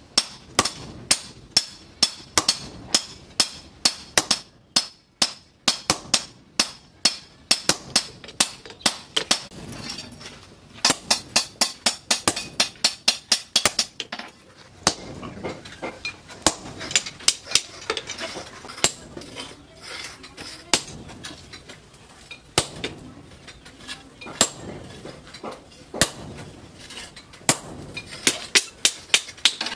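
Hammer blows on red-hot steel on a post anvil, coming in quick runs of about two to three strikes a second with short pauses between runs. The steel is being upset, compressed, before the axe's eye hole is punched. Near the end a second man strikes with a sledgehammer.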